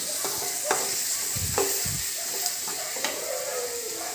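Onions, tomatoes and dried red chillies frying in oil in an aluminium kadai, a steady sizzle, while a long spatula stirs them, scraping and knocking against the pan a few times.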